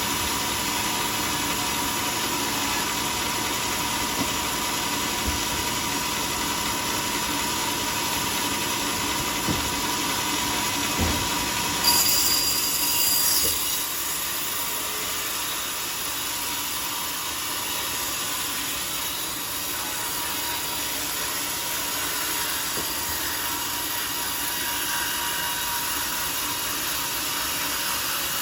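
Sawmill saw and its machinery running steadily while sawing a teak log, with a continuous noise and a steady tone. About twelve seconds in there is a brief, louder high-pitched screech lasting over a second.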